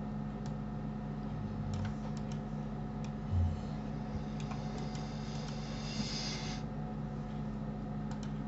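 Scattered computer mouse clicks and key presses over a steady low electrical hum. A brief high hiss rises about four and a half seconds in and cuts off suddenly about two seconds later.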